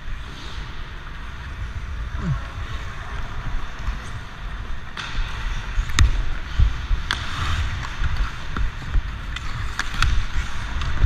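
Hockey skates scraping and gliding on ice, with a low rumble. From about five seconds in come sharp clacks of a stick blade on the puck as it is stickhandled, the loudest near six and seven seconds.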